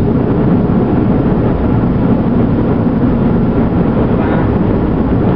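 Steady low rumble of vehicle noise, heard from inside a car.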